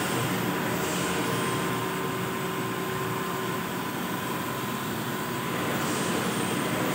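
Roll printing machine running steadily as it prints the MRP onto packaging roll film: an even mechanical hum with a faint high whine.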